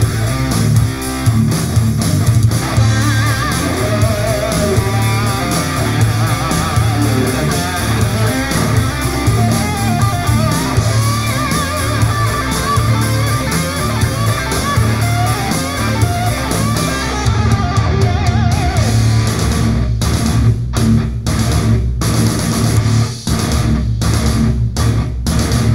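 Hard rock track with electric guitar and a heavy bass line, playing from an IKEA Symfonisk table-lamp Sonos speaker. Near the end the music turns choppy, with repeated short stops.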